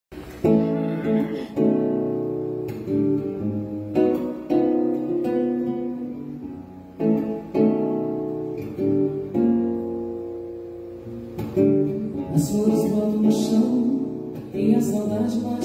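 Nylon-string acoustic guitar (violão) playing a slow chord introduction, starting about half a second in; each chord rings out and fades before the next.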